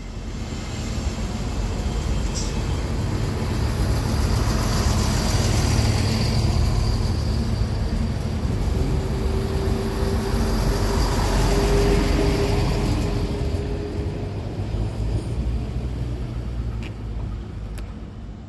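A train passing through the station, growing louder over several seconds and then fading away, with a steady whine partway through.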